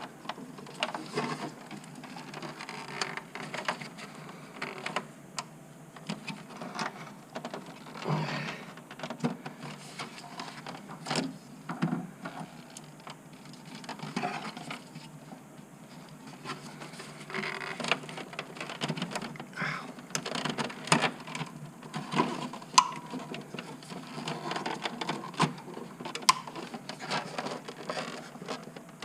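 Hands working the plastic wiring-harness connectors onto an ECU in a cramped engine bay: irregular plastic clicks, knocks and rattles with rustling of wires and housings.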